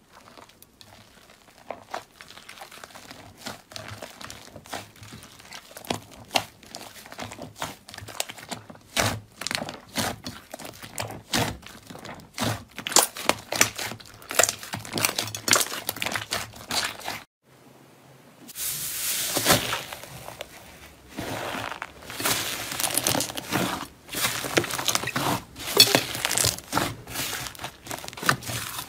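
Hands squeezing, pressing and stretching thick fluffy slime in a glass bowl: a run of crackling pops and tearing sounds as trapped air pockets burst. There is a brief pause a little past halfway, then denser crackling.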